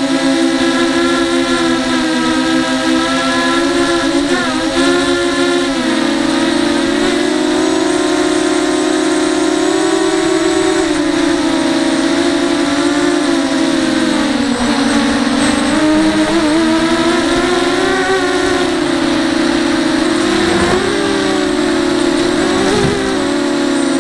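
ZMR racing quadcopter's brushless motors and 5-inch bullnose propellers running in flight: a loud, steady buzzing whine that wavers in pitch, dipping briefly a few times in the second half.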